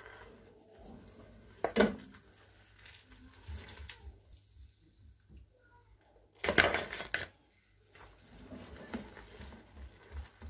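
A wire skimmer clanking and scraping against a large metal pot as boiled crayfish are scooped out, and the hard shells clattering into a plastic bowl. There are two loud clatters, a short one about two seconds in and a longer one a little past the middle, with softer knocks between.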